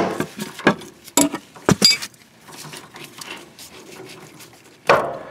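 Ratchet with a 5/8-inch socket and the steel canister of a fuel-oil filter clicking and clattering as the housing bolt is worked loose. There are a handful of sharp clicks in the first two seconds, then quieter handling noise and one louder knock near the end.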